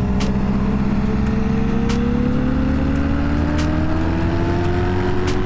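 Honda Magna cruiser's V4 engine running on steady throttle, its pitch rising slowly as the bike gains speed.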